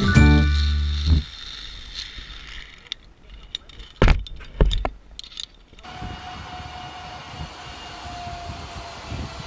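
Background music ends about a second in, followed by clicking and two loud metal clanks of zipline gear, trolley and clips, being handled on the launch platform. After that comes a steady rush of wind with a faint, slowly falling whir from a trolley running along the zipline cable.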